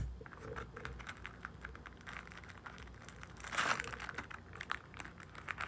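Clear plastic card wrapper crinkling and crackling as it is worked open by hand, with a louder burst of crackling about three and a half seconds in.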